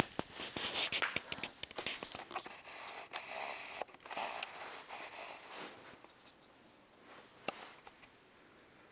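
Close handling noise: rustling and scraping with scattered sharp clicks, dying away after about six seconds, with one more knock near the end.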